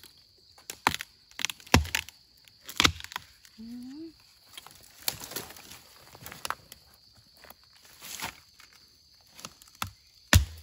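Young bamboo shoots being chopped with a knife and snapped off at the base: a series of sharp cracks and chops with rustling of leaf litter between, the loudest crack near the end.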